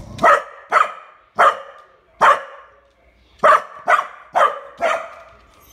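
Small dog barking at a squirrel outside: eight sharp single barks, spaced out at first, then a quicker run of four about halfway through.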